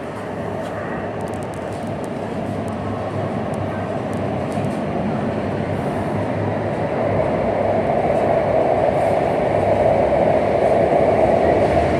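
Metro train approaching the platform, its running noise growing steadily louder throughout.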